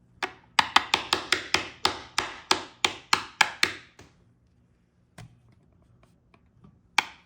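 A quick run of sharp taps on the ignition lock cylinder's small parts during bench repair, about four a second, then a pause with a single tap, and the taps starting again near the end.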